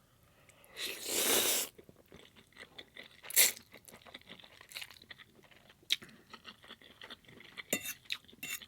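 Close-miked mouth sounds of a person eating: chewing with many small wet clicks. There is a louder noisy sound lasting under a second about a second in, and one sharp loud click a little later.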